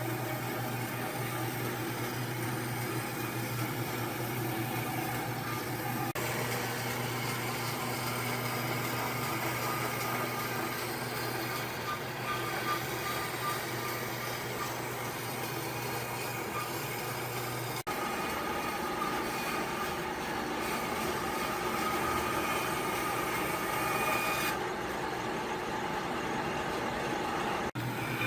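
A motor running steadily, with a low hum and several held tones; the sound changes abruptly several times.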